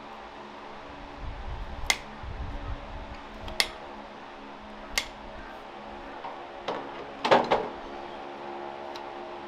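Farrier's tools working on a horse's hoof: about six sharp clicks and knocks at uneven intervals, the loudest a quick cluster near the end, over a steady background hum.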